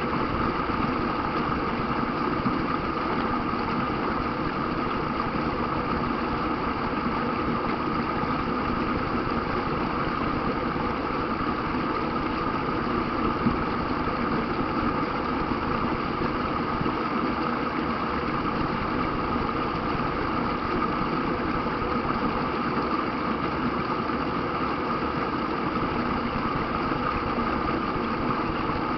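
Steady rushing of river rapids, an even roar of flowing water that holds unchanged throughout.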